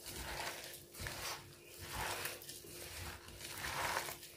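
Hands squeezing and kneading chopped spring onion, spinach and potato into gram flour (besan) in a steel bowl, a squeeze about once a second. The vegetables are being pressed so that their own water binds the besan into pakora batter without added water.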